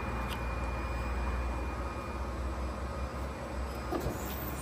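CNC press brake standing ready with a steady low hum from its hydraulic pump, plus a light tap or two as a flat metal strip is set against the backgauge finger.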